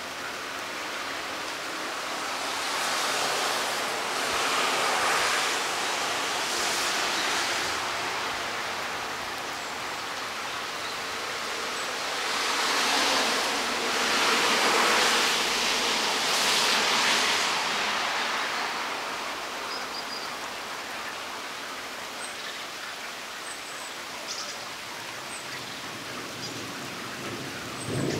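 Steady rain hiss with two vehicles swishing past on the wet road, tyres hissing. The first passes about three seconds in and the second about twelve seconds in, each swelling and fading over several seconds. A short thump comes at the very end.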